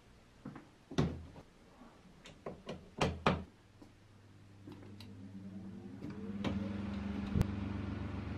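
A few knocks and clicks of handling, then the restored 1950s Elge desk fan's electric motor starts up. Its hum rises in pitch for about two seconds as it comes up to speed, then settles into a steady hum.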